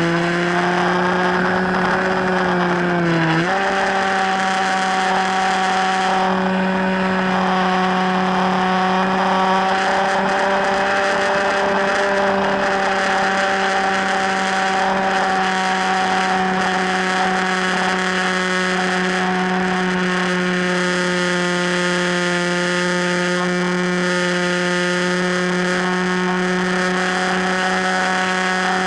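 Electric motor and propeller of an FPV Raptor radio-controlled plane running at steady throttle, a constant whine. Its pitch steps up slightly about three and a half seconds in as the throttle is opened a little.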